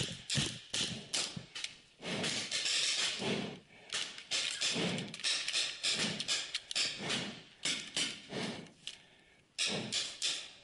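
Paintball game sounds: a string of sharp pops and knocks from markers firing and paintballs striking the concrete bunkers, mixed with footsteps and gear rustle on the dirt floor.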